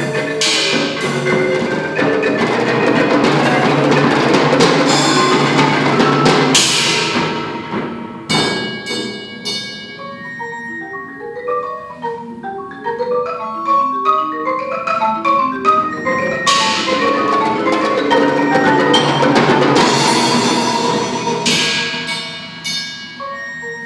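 Concert marimba playing with a percussion ensemble. Full-ensemble passages with ringing high accents thin out about 8 s in to separate marimba notes alone. The full ensemble comes back about 16 s in, then drops away to the marimba again near the end.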